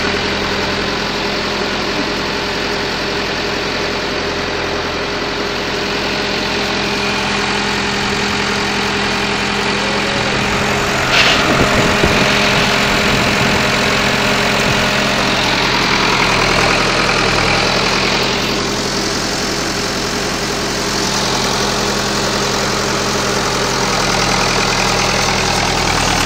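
Massey Ferguson 590 tractor's four-cylinder Perkins diesel engine idling steadily. About eleven seconds in there is a brief clatter, followed by a few seconds of added hiss over the engine.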